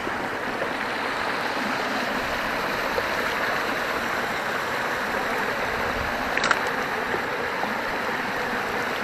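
Running stream water rushing steadily, with a brief high chirp about six and a half seconds in.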